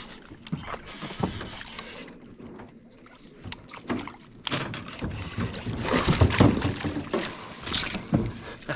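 Knocks, rustling and water noise on a small fishing boat while a hooked bass is fought. It grows louder and busier about four and a half seconds in.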